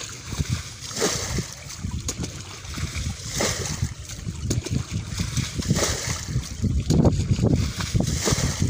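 Rope-swung bailing scoop dipping into a muddy ditch and flinging the water out, with a rushing splash about every two and a half seconds, four times over a low rumble.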